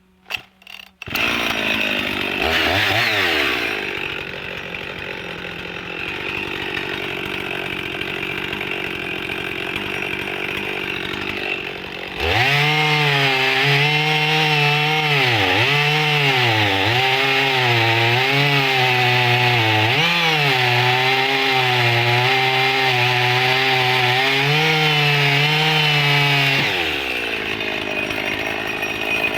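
Husqvarna 55 two-stroke chainsaw starting about a second in, revving briefly, then idling. Around twelve seconds in it goes to full throttle and cuts into a thick log, its pitch sagging several times under load, then drops back to idle near the end.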